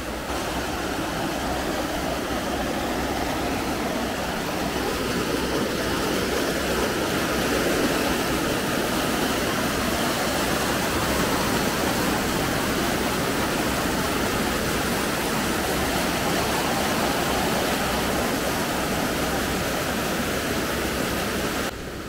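Small waterfall: white water cascading down a chute in the rock and splashing into a pool, a steady rushing that drops off suddenly near the end.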